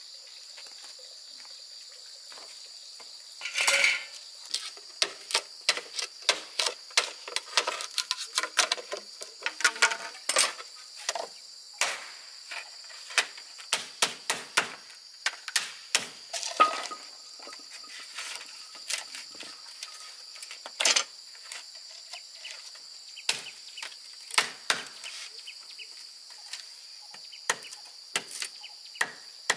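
Irregular sharp taps and clinks, a few a second, with a louder cluster about four seconds in, over a steady high-pitched insect drone.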